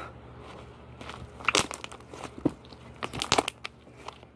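Slime being squeezed and pressed by hand, giving crackling clicks and pops in two clusters, one about a second and a half in and a longer one about three seconds in.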